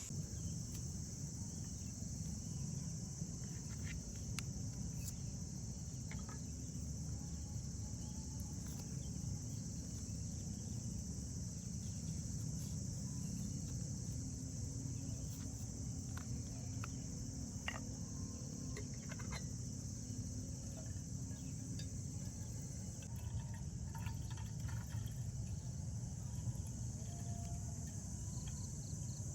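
A steady, unbroken high-pitched insect chorus, like crickets, over a low steady rumble, with a few faint scattered clicks.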